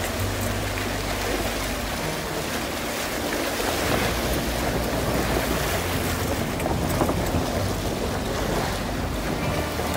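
A vehicle fords a shallow, rocky creek: water splashes and rushes around the tyres over a steady low engine hum.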